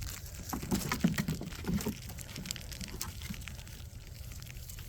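Six-week-old Doberman puppies scuffling at play: a scatter of small taps and clicks from paws and toys, busiest in the first two seconds.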